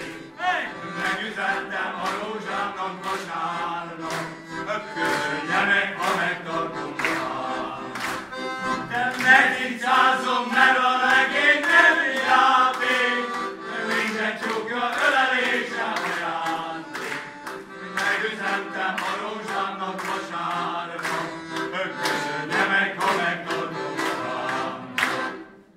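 Male folk choir singing a Hungarian folk song, accompanied by a piano accordion; the song stops near the end.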